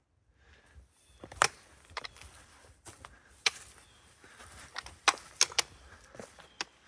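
Footsteps of a hiker on a steep, rocky trail: irregular sharp clicks and scuffs of boots striking rock, starting about a second in.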